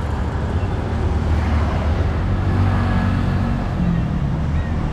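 Steady low rumble of city road traffic, with a faint engine hum standing out for a second or two in the middle.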